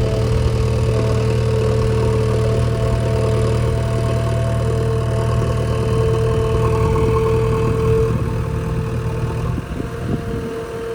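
JCB backhoe loader's diesel engine running steadily, with a steady whine over it; the low engine sound drops away near the end.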